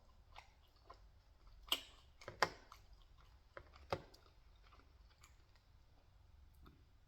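Close-up eating sounds of someone chewing pizza, with three louder sharp clicks between about two and four seconds in.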